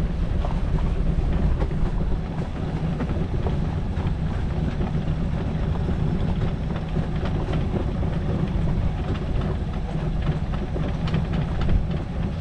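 Steady low rumble and wash of a sailboat under way, with wind buffeting the microphone and small crackles running through it.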